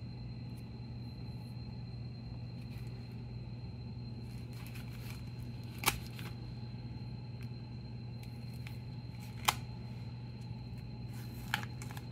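A knife slitting open a plastic bubble mailer: faint scraping and crinkling, with two sharp clicks about six and nine and a half seconds in and a few more near the end, over a steady low hum.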